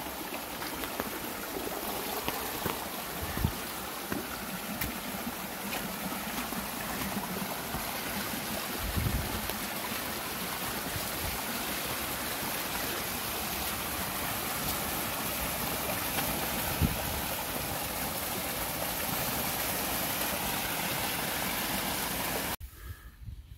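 Storm runoff from typhoon rain rushing down a rocky hillside trail and spilling over rocks in a small cascade: a steady rushing of water with a few dull thumps, cutting off abruptly near the end.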